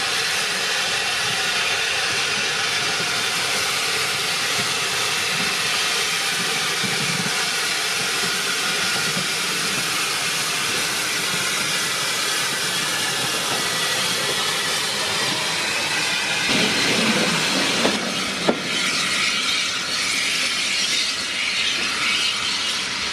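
Small steam tank engine hauling a train of coaches past, with a steady hiss of steam. A heavier rumble builds as the coaches roll by, with a single sharp knock from the wheels about eighteen seconds in.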